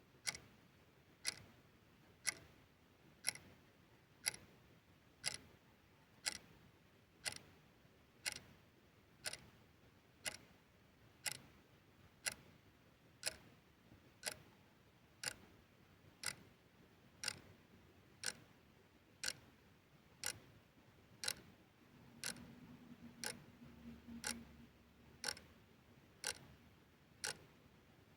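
Vintage clock ticking steadily, about one crisp tick a second.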